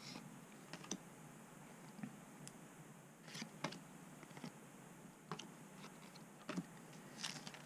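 Faint, scattered clicks and light taps of trading cards being handled, as cards are slid off the front of a small stack and tucked behind it one at a time.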